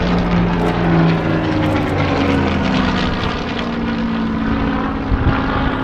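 A Spitfire's piston engine and propeller running loud and steady as the fighter flies past, its pitch sinking slowly as it draws away.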